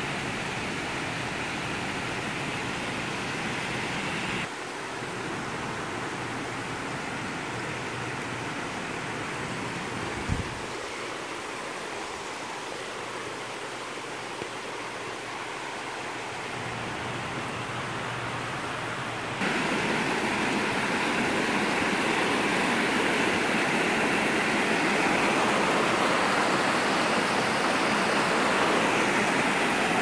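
Creek water running over small cascades and stepped rock ledges: a steady rush that drops a little about four and a half seconds in and grows louder about twenty seconds in. A brief low thump about ten seconds in.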